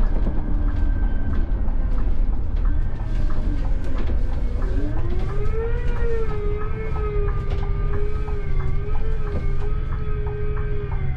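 Scania-powered coach heard from the driver's cab on the move: steady engine and road rumble, with a drivetrain tone that rises in pitch about halfway through, holds, and falls away near the end.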